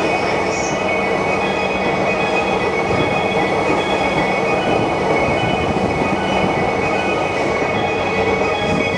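JR East E233-series Keihin-Tōhoku Line electric train running past close alongside the platform. Steady rumble of wheels on rail, with several high steady tones held on top.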